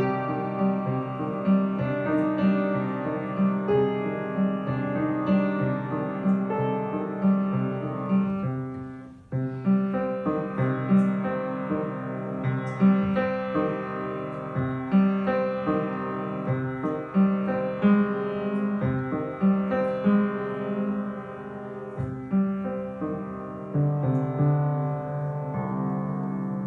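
Upright piano played solo, a melody over repeated low notes. The sound dies away briefly about nine seconds in, then the playing resumes.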